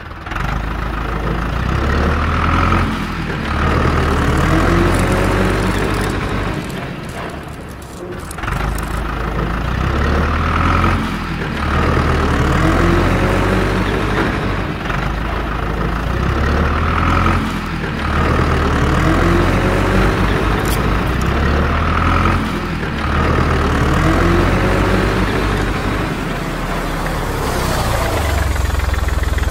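Dubbed-in tractor engine sound effect, looped: an engine running, with a rise in pitch that repeats about every six seconds.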